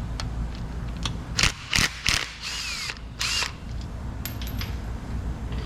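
Metal engine parts clinking and scraping as the timing chain and its parts are worked off the front of the engine: a few sharp clicks and knocks, then two short scrapes, over a steady low hum.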